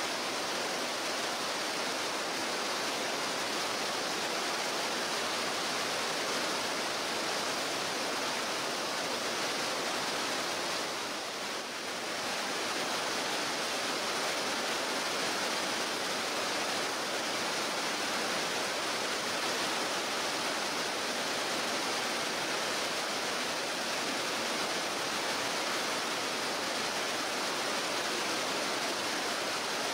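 Rushing water of a rainforest stream pouring over rock ledges and boulders in rapids: a steady, even rush that eases briefly a little before halfway.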